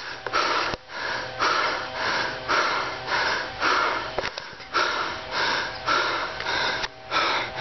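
A person breathing hard close to the microphone, quick heavy breaths about two a second, out of breath.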